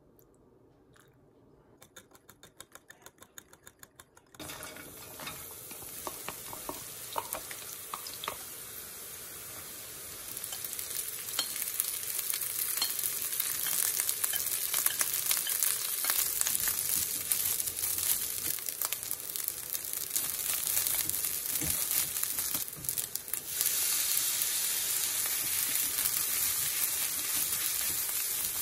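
Onions, garlic and then cooked rice frying in oil in a nonstick pan: a steady sizzle with the scraping and clicking of a spatula stirring, growing louder about a third of the way in. Before the frying starts there are a few quiet seconds with a quick run of light clicks.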